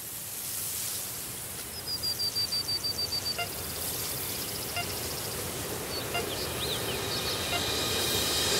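Outdoor ambience with a steady hiss that slowly grows louder. A bird trills quickly on one high, slightly falling note about two seconds in, and gives a few scattered high chirps later.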